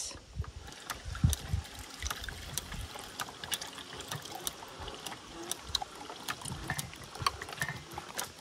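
Hand-cranked Victorio food strainer pressing cooked tomatoes: irregular clicks and ticks from the turning crank and auger, with wet dribbling of sauce through the screen.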